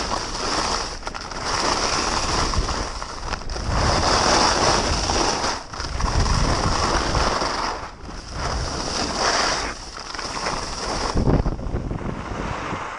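Skis carving and scraping over packed snow at speed, with wind rushing over the camera microphone. The rushing swells and fades with each turn and drops away near the end.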